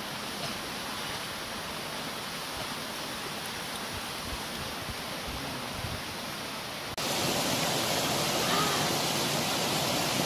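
Rushing water of a rocky forest stream and small waterfall, a steady hiss that gets louder about seven seconds in.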